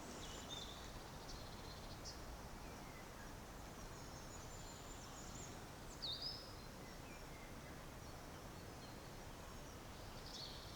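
Faint woodland birdsong: scattered short, high bird calls, the loudest a quick falling call about six seconds in, over a low steady rumble of distant road traffic.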